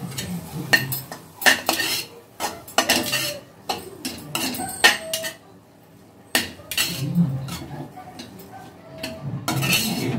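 Perforated metal spatula scraping and knocking against a pan while stirring cabbage stir-fry with freshly added grated coconut: irregular scrapes and clanks, with a short pause a little past the middle.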